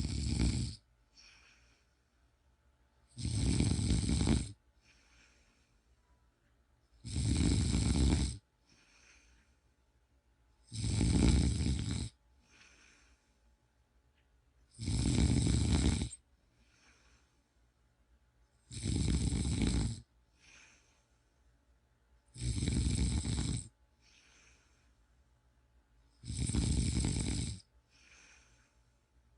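Someone snoring in a slow, even rhythm: a loud snore about every four seconds, each lasting just over a second and followed by a short, much fainter breath.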